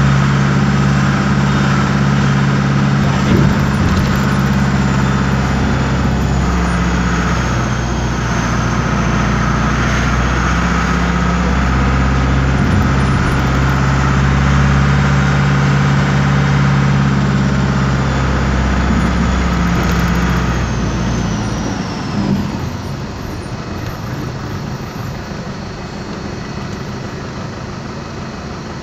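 Air-cooled Deutz diesel engine of an Otokar M-2000 bus, heard from inside the cabin, running steadily under way with a high whine over its low drone. About 21 seconds in, the engine note and whine fall away and the sound settles quieter as the bus slows toward a stop.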